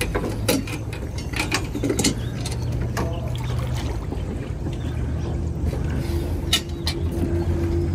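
Scattered knocks and clicks as a metal frame on a wooden fishing jetty is handled, over a steady low hum.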